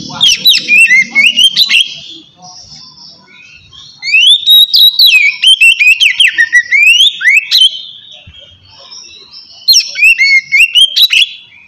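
Oriental magpie-robin singing clear, loud whistled phrases in three bursts, about a second and a half, three and a half seconds, and a second and a half long, made of quick rising and falling notes.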